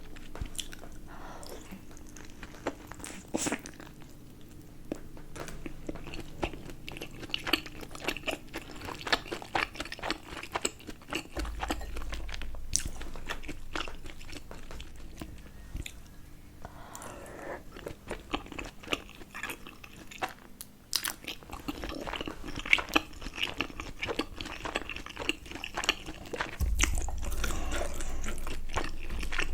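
Close-up eating sounds of a person biting and chewing momos (dumplings): many short wet smacks and crunchy clicks. A low rumble comes in partway through, drops away, and returns near the end.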